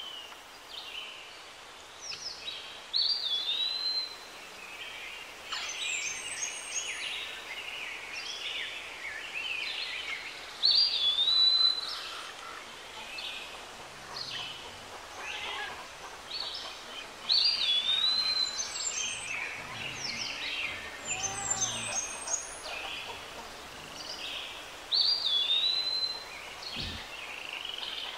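Birds chirping and calling, with a mix of short chirps and trills. One bird repeats the same short whistled phrase, rising then falling, about every seven seconds.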